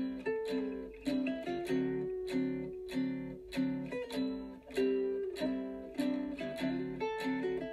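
Background music on a strummed, guitar-like plucked-string instrument, with a steady strum a little under twice a second.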